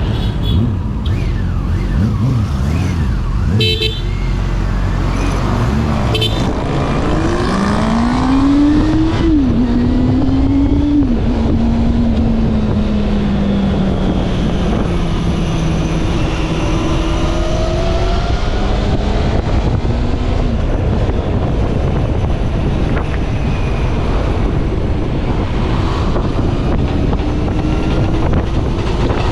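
Honda CB400 Super Four Revo's 399cc inline-four on its stock exhaust, heard while riding. The engine note climbs and drops sharply twice as it shifts up, then slowly falls as the bike eases off, over steady road and wind rush.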